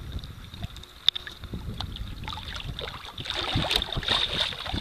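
Water lapping and sloshing against the hull of a small fishing boat, with wind rumbling on the microphone; a sharp knock sounds about a second in, and the sloshing grows louder after about three seconds.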